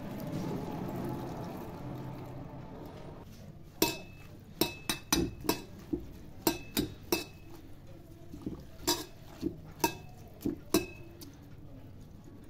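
Water poured from a steel jug into a steel bowl of fenugreek leaves, a steady rushing for the first few seconds. Then leaves rubbed and stirred by hand in the bowl, with a dozen or so sharp metallic clinks against the steel bowl, each ringing briefly.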